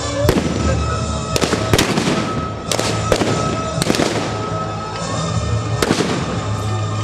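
Scattered gunshots from a staged battle firing blanks: about eight sharp reports at irregular intervals, each with a short trailing echo, over background music.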